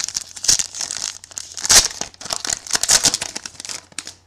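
Foil trading-card pack being torn open and its wrapper crumpled by hand: a dense, crackling crinkle with many sharp snaps, stopping about four seconds in.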